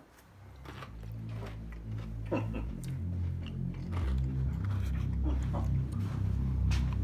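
Crunching bites and chewing of tortilla-chip poke bites, a scatter of short crackly crunches. They sit over background music with a heavy bass line that fades in during the first second or so.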